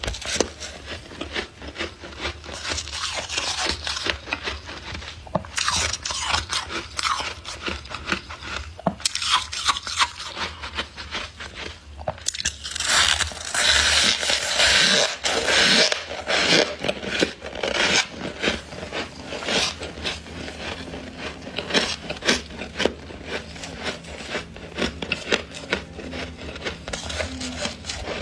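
Thick, fluffy freezer frost being scraped and crunched: a dense run of small crackling crunches, with a few seconds of louder, continuous scraping about halfway through.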